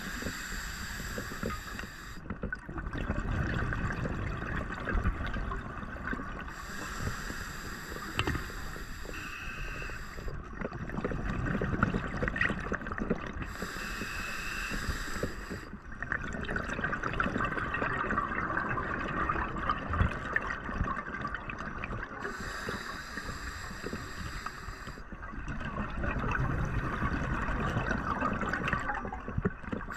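Scuba diver breathing through a regulator underwater, heard through the camera housing: four hissing inhales, each followed by a longer burbling rush of exhaled bubbles, in a slow steady cycle.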